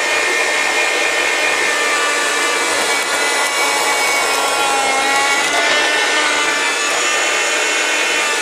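Electric bread slicer running steadily, its blade sawing through a fresh loaf of bread.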